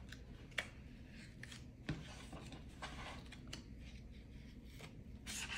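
Faint rubbing and scraping of paper card as an Apple Watch Sport Band is slid out of its card holder, with a few light clicks and a louder scrape near the end.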